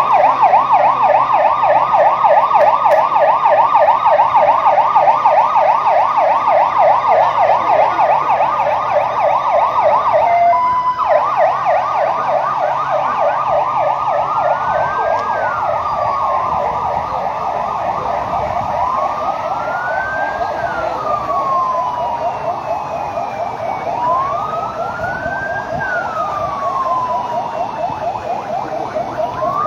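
Sirens sounding for an earthquake-and-tsunami drill. A fast yelping siren is loud at first, breaks briefly into a steady tone about ten seconds in, then resumes and slowly fades. From about a third of the way in, a second siren wails, slowly rising and falling about every five seconds.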